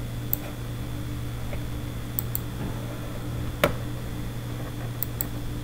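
Computer mouse clicks over a steady electrical hum: a single click, a quick double-click, a sharper single click a little after halfway, then another double-click near the end.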